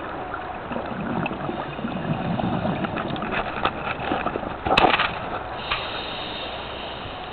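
Scuba diver's breathing heard underwater: gurgling bubbles of exhaled air, a sharp click a little after halfway, then a steady hiss near the end.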